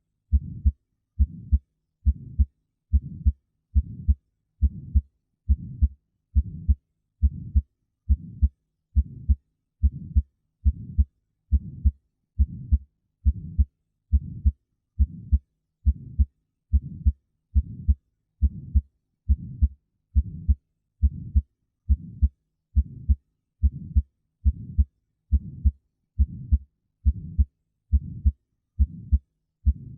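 Heart sounds heard through a stethoscope: a regular lub-dub heartbeat, a little over one beat a second, with dull, low-pitched beats and nothing between them.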